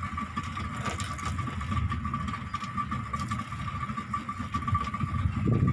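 Boat motor running steadily while trolling: a low rumble with a steady whine.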